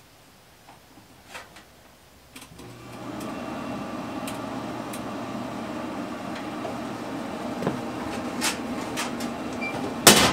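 Camp Chef pellet grill being switched on: a few light clicks at the controller, then almost three seconds in its fan motor starts and runs with a steady hum. A sharp knock near the end.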